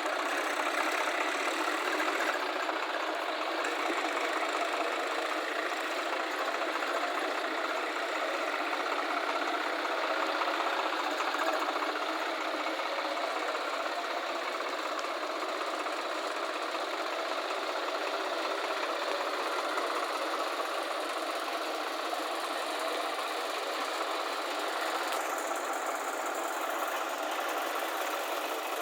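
Diesel engine of a backhoe loader or tractor running steadily, heard thin with no bass.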